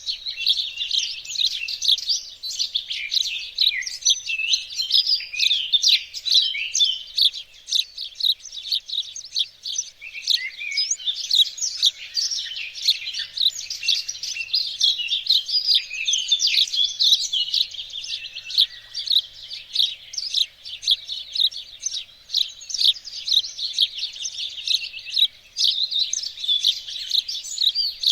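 Songbirds chirping and singing in a dense, continuous chorus of rapid, high, overlapping calls.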